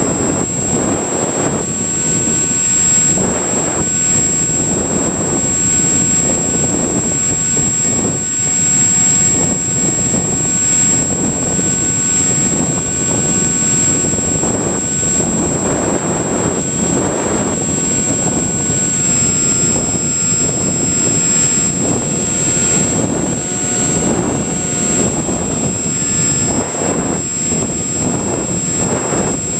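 Wind rushing over a Multiplex EasyStar foam RC plane in flight, swelling and fading every second or two, with the faint whine of its electric pusher motor and a steady high-pitched whistle throughout.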